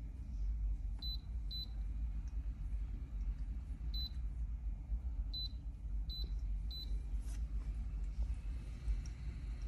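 Six short, high-pitched electronic beeps at irregular intervals in the first seven seconds, over a steady low hum.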